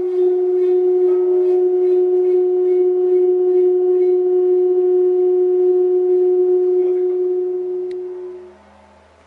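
Round metal plate covered in coloured dust resonating with one steady tone and its overtones, which drives the dust into shifting patterns; the tone fades out about eight seconds in, with a single click just before it dies away.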